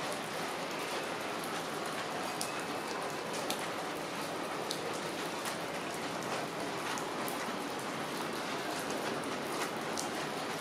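Rain falling steadily: an even hiss of rain with scattered sharp ticks of single drops landing close by.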